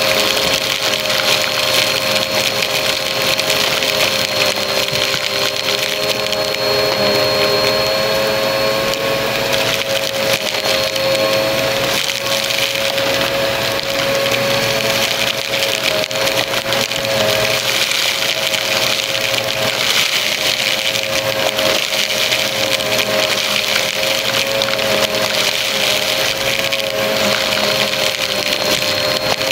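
Upright bagless vacuum cleaner running on carpet with a steady motor whine, and constant crackling and rattling as confetti bits are sucked up through the head into the bin.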